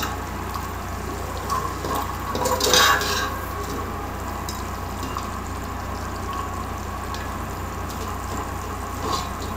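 Chicken curry for biryani boiling in a metal pot while a perforated metal ladle stirs it, scraping and clinking against the pot. The loudest scrape comes about two and a half to three seconds in.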